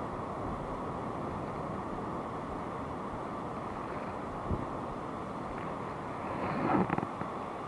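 Steady wind noise on the microphone over shallow sea water, with a short knock about four and a half seconds in and a brief louder burst of noise near the end.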